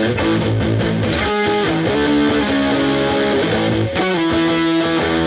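Xaviere Pro 870 Stratocaster-style electric guitar playing a strummed chord riff, the chords changing a few times with sharp pick attacks.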